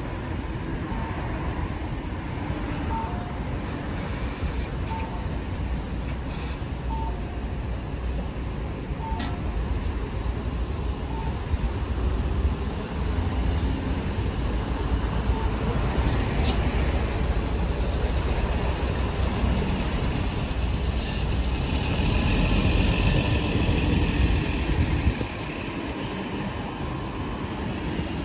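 Diesel city bus engine running as the bus drives past close by and pulls away, a steady low rumble that grows louder in the second half. A faint short beep repeats every second or two during the first half.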